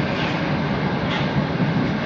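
Moscow Metro Moskva-2020 train running between stations, heard from inside the car as a steady low running noise of wheels and motors, with two faint short hisses, one just after the start and one about a second in.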